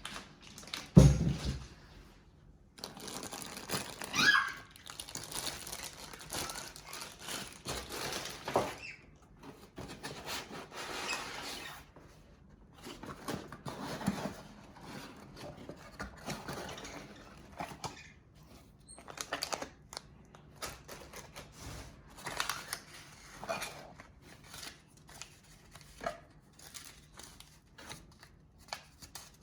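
Packaging being handled during an unboxing: irregular rustling, crinkling and tearing of wrapping material, with scattered clicks and knocks and a heavy thump about a second in.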